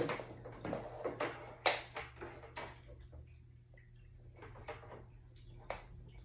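Handling noises as a power cord is plugged in: a run of clicks, taps and rustles, busiest in the first three seconds, with the loudest knock a little under two seconds in, then sparser.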